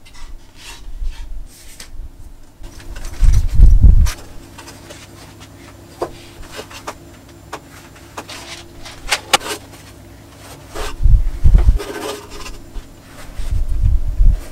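Lid slid off a pine wooden box and foam trays of model-engine parts slid out and set down on a bench: wood rubbing on wood, with many sharp clicks and knocks and heavier thumps about three seconds in, around eleven seconds and near the end.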